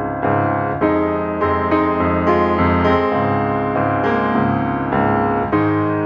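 Background music on piano, notes and chords struck one after another every half second or so.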